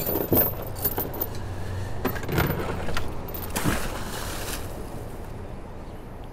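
Boat anchor chain clinking and rattling in several separate bursts as the anchor is lowered over the side by hand.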